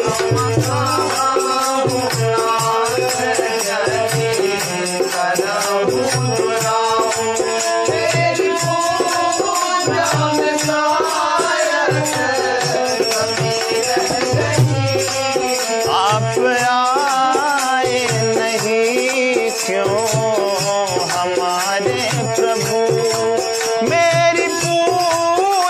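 Hindi devotional song (bhajan) music: a wavering melody over a steady beat, with rattling percussion.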